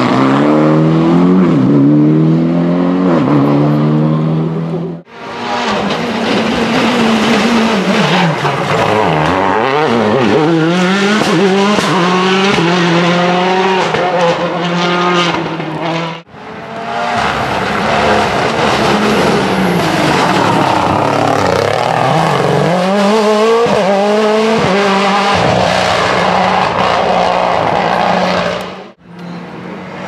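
Rally cars at full throttle, one after another, engines revving hard and climbing in pitch through quick upshifts. The first is a Mitsubishi Lancer Evolution X. The sound cuts off briefly about five seconds in, again around sixteen seconds, and just before the end as the clips change.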